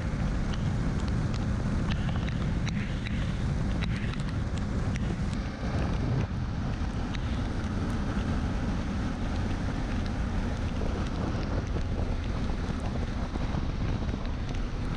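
Wind rushing over the microphone of a camera on a moving motorcycle, a steady low noise over the bike's running engine, with a few faint ticks.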